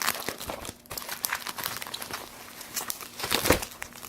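Packaging tape and wrapping crinkling and tearing as a package is cut and pulled open, irregular crackles throughout with a louder rustle about three and a half seconds in.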